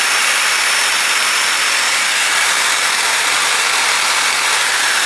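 Corded electric drill clamped in a bench vise, running steadily with a wide brush end in the chuck, with a steady high whine. A small cast iron part is held against the spinning brush to rub off old paint.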